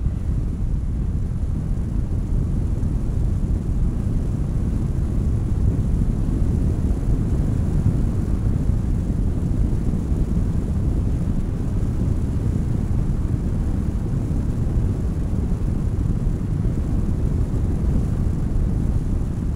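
A car driving at speed, heard through a camera mounted on the outside of the car: steady low wind buffeting on the microphone mixed with tyre and engine rumble.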